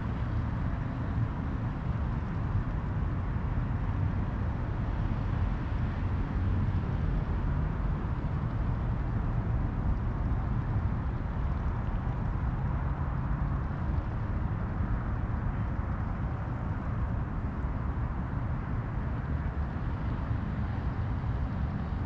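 Steady low rumble of distant engines, with a few faint held engine tones under it.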